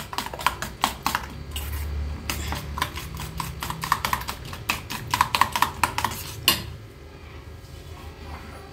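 Metal spoon beating raw egg mixture in a stainless steel bowl: quick, uneven clinks of the spoon against the bowl, several a second, ending with one louder clink about six and a half seconds in.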